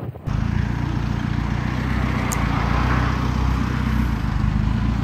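A motor vehicle's engine running steadily under a loud, even rushing noise, cutting in abruptly just after the start.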